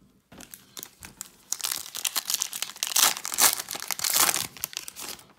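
Foil wrapper of a 2019-20 Donruss Optic basketball hobby pack being torn open and crinkled by hand: a dense crackling that starts softly and grows louder after the first second or so.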